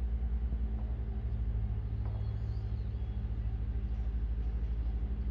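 A low, steady mechanical hum with a fast, even throb.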